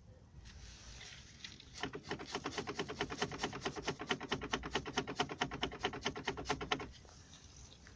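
Rapid, evenly spaced knocking from a car's drive half-shaft, starting about two seconds in and stopping near the end: the half-shaft knock that marks a fault in the axle shaft or its joint.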